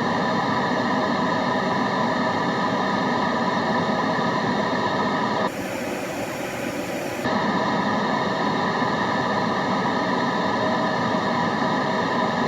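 Steady white-noise ambience, a continuous even hiss. About five and a half seconds in its tone changes for under two seconds to a slightly quieter, brighter hiss, then returns.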